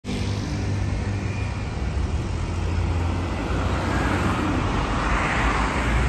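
Street traffic: a steady low rumble of passing vehicles, with a car's tyre and engine noise swelling as it drives past close, loudest near the end.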